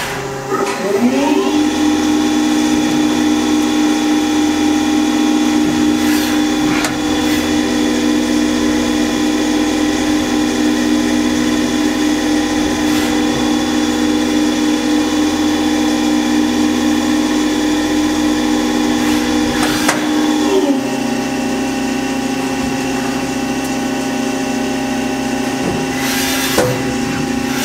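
Haas SL-20T CNC lathe running a program: its drive whine rises in pitch about a second in as it speeds up, then holds a steady hum with several tones. A few sharp clanks come now and then, and the pitch drops and shifts about two-thirds of the way through before rising again near the end.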